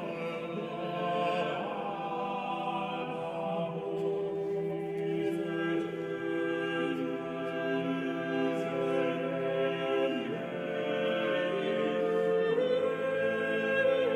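Background choral music: voices singing slow, long-held chords, with the harmony shifting twice near the end.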